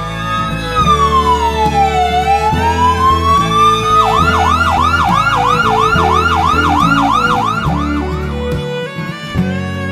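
Emergency-vehicle siren: one slow wail that falls and rises again, then about four seconds in switches to a fast yelp of about four cycles a second, stopping shortly before the end. Background music plays underneath.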